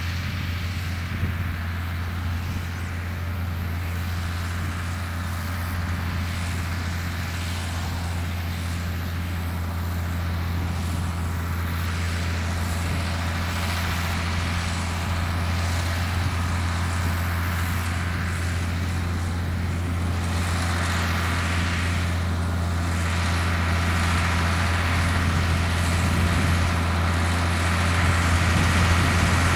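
International Harvester 1066 tractor's diesel engine running steadily with a low drone during round baling, gradually getting louder.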